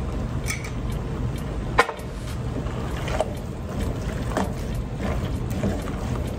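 Spatula stirring and scraping chicken and vegetables in teriyaki sauce around a pan, over a steady low hum, with one sharp knock about two seconds in.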